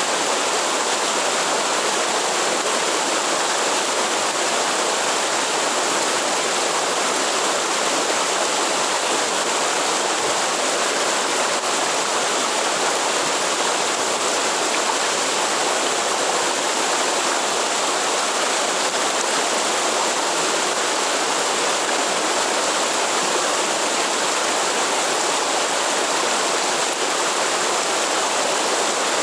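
Waterfall pouring steadily, a constant, unbroken rush of water.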